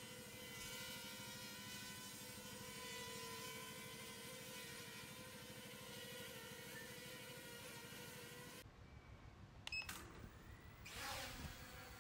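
E88S mini quadcopter's brushless motors and propellers giving a steady high whine that wavers slightly in pitch as it hovers. The whine cuts off abruptly about nine seconds in. A sharp click near ten seconds is the loudest sound, and a brief rush of noise follows.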